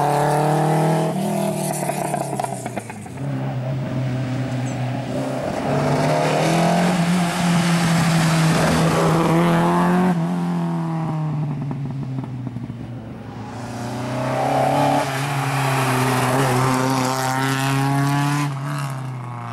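Historic rally cars driven hard one after another, among them a Renault 5 Turbo, an Opel Ascona 400 and a SEAT 1430. Their four-cylinder engines rev high and shift through the gears, then the sound fades out near the end.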